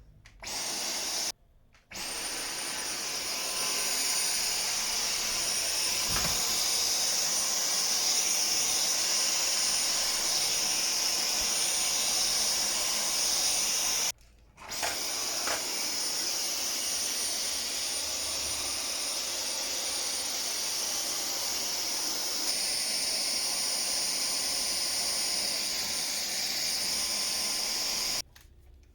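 Dyson Micro 1.5kg cordless stick vacuum running, its high-speed Hyperdymium motor giving a steady airy rush with a thin high whine. It cuts out briefly twice, about a second and a half in and again near the middle, each time whining back up to speed.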